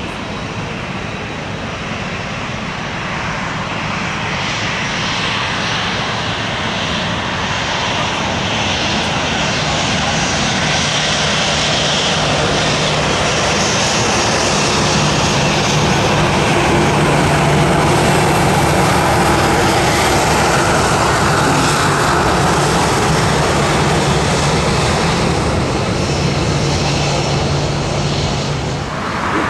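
Jet airliner on landing approach passing close by, its engine noise building to its loudest about halfway through and staying loud, with a faint steady low hum beneath.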